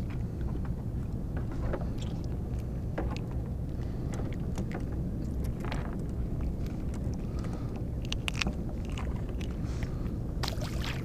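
Water lapping and splashing against a fishing kayak's plastic hull on the open sea, over a steady low rumble, with scattered small clicks and taps.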